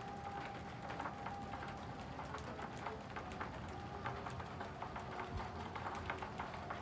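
A flock of lovebirds pecking and cracking seed at a feeding tray: a dense, irregular patter of small clicks.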